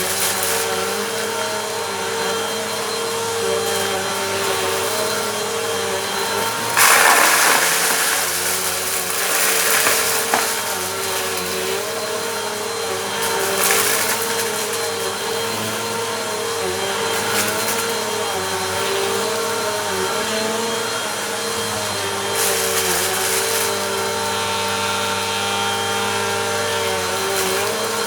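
Bissell Compact vacuum cleaner running on a rug, its motor hum wavering in pitch as it is pushed back and forth. Several louder bursts of crunching as it sucks up dirt, the strongest about seven seconds in.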